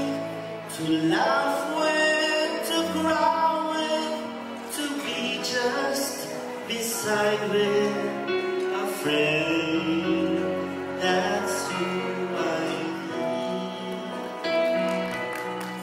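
A male singer's amplified voice singing a song into a handheld microphone, with instrumental accompaniment.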